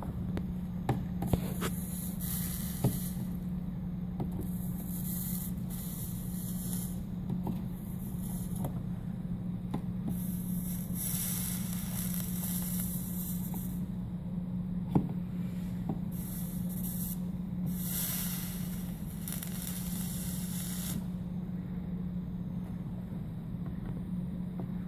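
Flux sizzling and hissing in bursts of a few seconds each as a hot soldering iron melts solder along the seams of glass pieces. Underneath is a steady low hum, and there are a few light taps.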